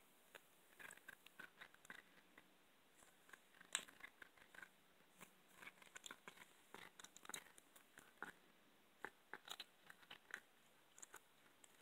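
A black tabby cat chewing a raw chicken wing, crunching through the bone: faint, irregular crunches and clicks, a few each second, with one louder crunch about four seconds in.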